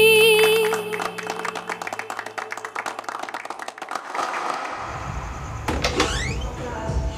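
A woman's held sung note over acoustic guitar ends, and a few seconds of audience applause follow. About five seconds in, background music comes in.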